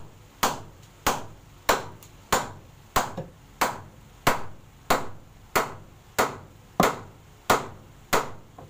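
Steady hammering: sharp, evenly paced blows, about three every two seconds, each ringing briefly, as the wooden wall shelf is fixed in place.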